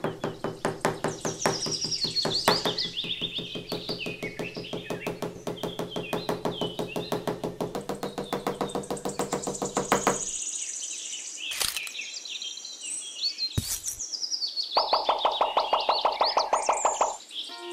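Background music of rapidly repeated plucked-string notes, with birds chirping and twittering over it. The music breaks off about ten seconds in, leaving the birdsong and a couple of single knocks, and comes back for a couple of seconds near the end.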